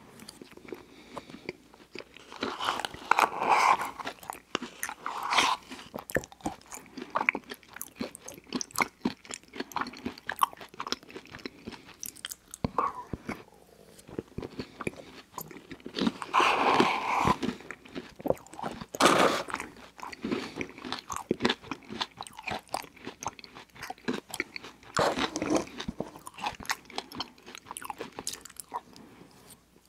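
Close-miked mouth sounds of eating an Oreo McFlurry from a spoon: wet smacking and chewing of soft ice cream with cookie bits, with several louder bursts between quieter stretches.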